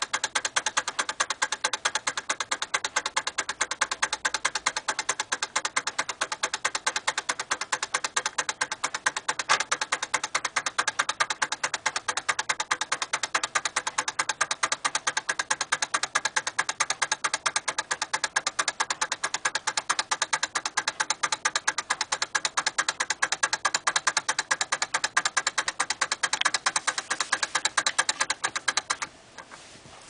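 Nordic Ware Micro-Go-Round wind-up microwave turntable ticking rapidly and evenly as its spring-driven clockwork turns the platter. The ticking stops about a second before the end.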